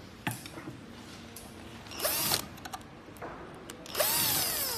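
Cordless drill/screwdriver running in two short bursts, about two seconds in and again near the end, the second longer, the motor's pitch rising then falling each time as it backs out screws from the key-cutting machine's casing. A light click comes shortly before the first burst.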